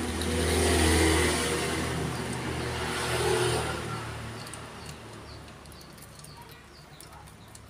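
A motor vehicle's engine running, loudest about a second in and then fading away over the next few seconds.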